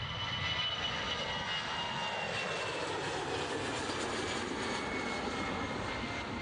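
Airbus A320-family airliner's twin jet engines at takeoff thrust as it lifts off and climbs away: a steady, loud rushing roar with a high engine whine that slowly falls in pitch.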